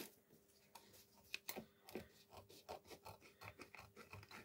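Faint rustling and crinkling of plastic vacuum-sealer bag film being unrolled from its roll and handled, with scattered soft clicks.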